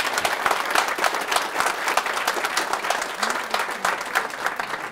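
Audience applauding: many people clapping together in a dense, steady patter that starts to thin out near the end.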